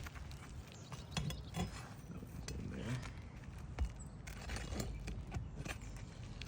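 Scattered clicks, scrapes and light taps of hand work on asphalt roof shingles as roofing nails are worked out from under them, with one sharper knock about four seconds in.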